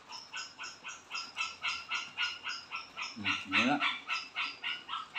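Frogs calling in a rapid, even train of croaks, about four to five a second, with a short rising call-like sound about three seconds in.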